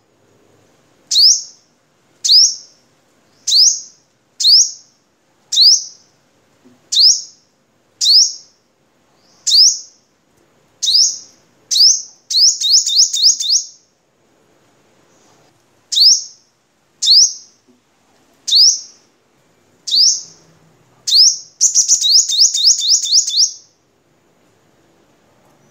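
A male sunbird calls in a loud series of sharp, high, sweeping notes, about one a second. Twice, about halfway and near the end, the notes speed up into a fast run.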